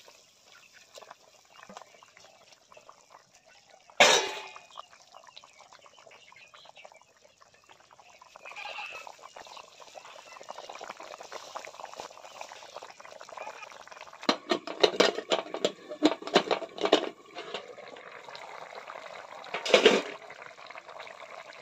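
Fish curry with tomatoes bubbling at a rolling boil in an iron kadai. There is a loud knock about four seconds in, a run of rapid clattering knocks past the middle, and another loud knock near the end.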